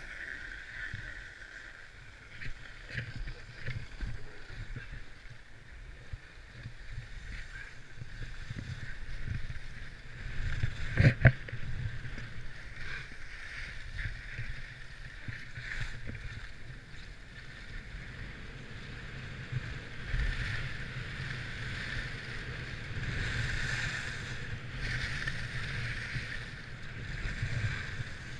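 Skis sliding and scraping over packed snow on a downhill run, with low wind rumble on the action camera's microphone. A single sharp knock about a third of the way through is the loudest moment.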